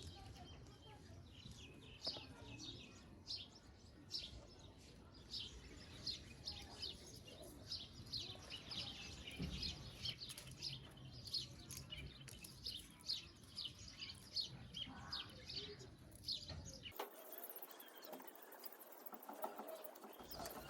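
Small birds chirping: many short, high notes repeated rapidly over a faint low rumble. About three-quarters of the way through, the sound cuts abruptly to a thinner, hissy recording.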